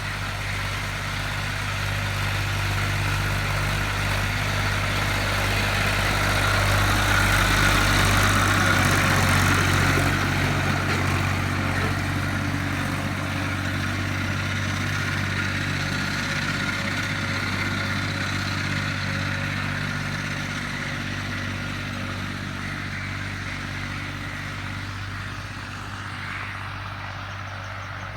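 Tractor engine running steadily as it pulls a plough. It grows louder over the first several seconds, peaks at around ten seconds, then slowly fades as the tractor moves away.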